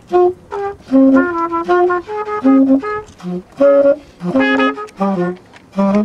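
Trumpet and saxophone playing a jazz duet: quick phrases of short and held notes, the two melodic lines sometimes overlapping.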